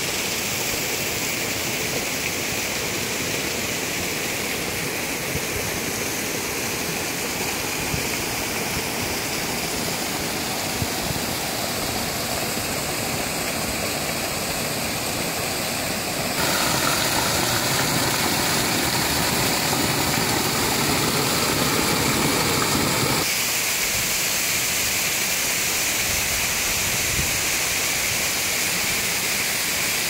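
Small waterfall cascading down a rock face: a steady rush of falling water, louder for several seconds past the middle.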